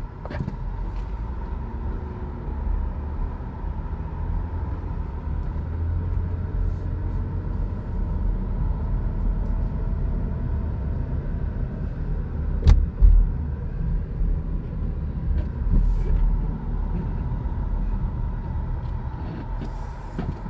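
Car driving, heard from inside: a steady low rumble of engine and tyres on the road, with a sharp knock and thump about thirteen seconds in and a smaller bump a few seconds later.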